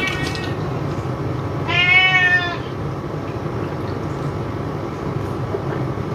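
A cat meows once, a single drawn-out call about two seconds in, over a steady low background hum.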